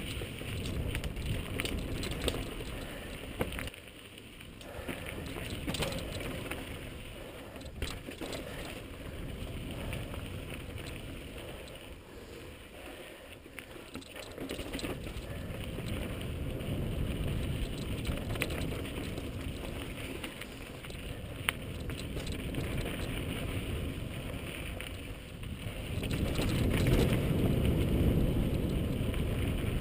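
Mountain bike riding over rocky singletrack, heard from a helmet-mounted camera: tyres rolling over dirt and rock with the bike rattling and sharp knocks over bumps. A low rush rises and falls under it, loudest near the end.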